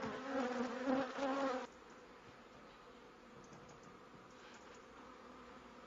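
An insect-like buzz, a steady pitched drone, cuts off abruptly less than two seconds in. After it, only a faint hiss with a few scattered faint ticks.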